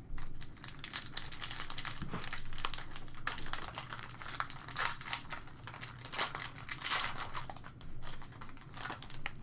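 Trading card pack wrapper being torn open and handled, a dense run of crinkling and crackling with sharper crackles about five to seven seconds in.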